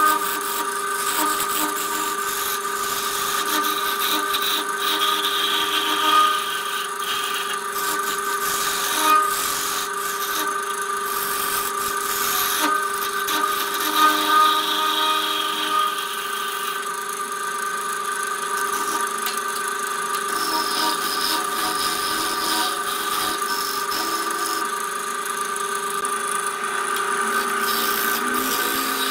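Electric wood lathe running with a steady whine while a turning tool cuts the inside of a spinning wooden bowl, giving a continuous scraping hiss of shavings being peeled off, with a few brief louder scrapes.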